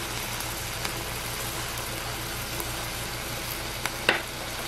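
Pork steaks sizzling on a hot griddle: a steady frying hiss with a few small ticks and one sharp crack about four seconds in.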